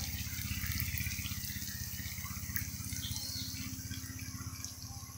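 Oil sizzling and crackling in a frying pan around pieces of vegetarian mock mackerel, with a low steady pulsing hum underneath; the sizzle slowly gets quieter.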